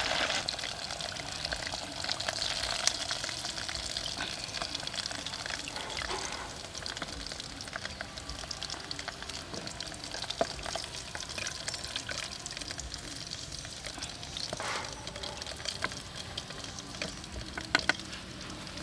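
Pork ribs deep-frying in hot oil in a metal pot: a steady sizzle that gradually dies down. A few sharp clicks come from the metal tongs against the pot as the ribs are turned and lifted out.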